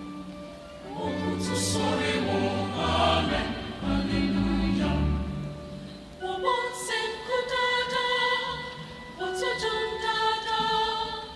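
Mixed choir of men and women singing in harmony. About six seconds in the deep low notes drop out, leaving higher, long-held chords.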